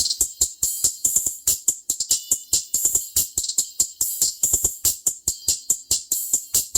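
Music played through a DS18 TWPZ piezo super tweeter wired straight to the power source with only its built-in crossover. Almost only the treble comes through: a thin, tinny, fast steady beat of hissy percussion hits with almost no bass.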